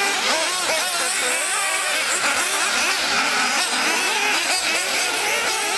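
Several 1:8-scale nitro RC buggies with small glow-fuel engines racing, their high-pitched whines overlapping and constantly rising and falling as the cars accelerate and brake.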